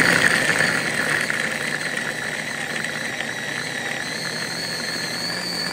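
Electric blender running, chopping chunks of ginger, garlic and green chillies in oil into a paste: a steady motor sound, loudest at the start, with a faint high whine that creeps up in pitch in the second half.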